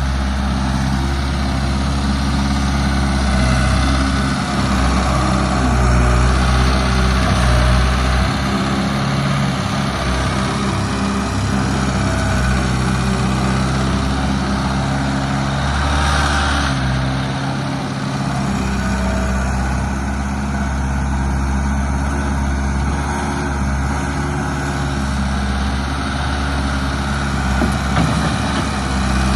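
Case 1845C skid steer's four-cylinder 4BT Cummins diesel running steadily, its low note shifting a few times, with a brief hiss partway through.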